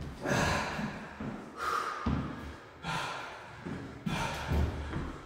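A man breathing hard through a cardio interval, with several loud, hissy exhales, while his trainers thud on a wooden floor as he jogs.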